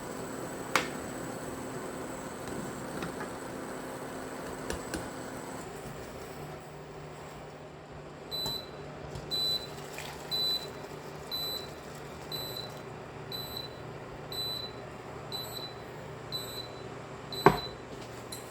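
An electronic appliance beeps, short high tones about once a second, starting about eight seconds in and sounding around ten times over a steady low hum. A sharp knock comes early on and another near the end.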